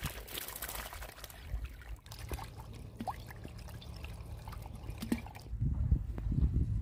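Water trickling and gurgling as it runs into a hole in the sand, with small splashes and clicks. A low rumble comes in near the end.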